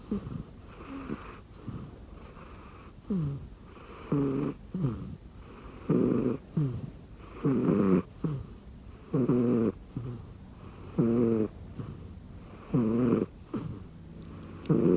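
A sleeping cat snoring, one short snore on each breath, about every one and a half to two seconds. The snores grow louder after the first few seconds.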